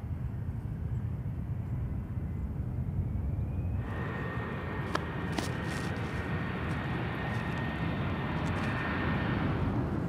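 Jet aircraft engine noise over a steady low rumble; about four seconds in the noise broadens and a steady high turbine whine sets in, holding until near the end. Two sharp clicks come about a second after the whine begins.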